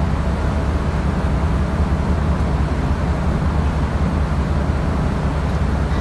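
A ship's engine running with a steady low rumble.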